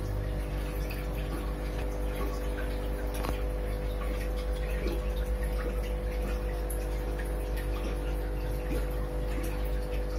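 Aquarium filter pump running: a steady low hum with water trickling and faint drips.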